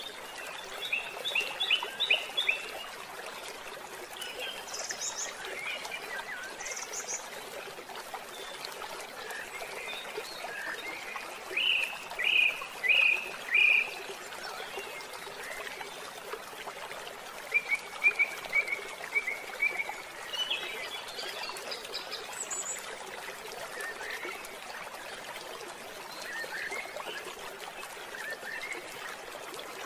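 Steady trickle of a small stream with birds chirping in short runs of three to five quick notes, the loudest run about twelve seconds in.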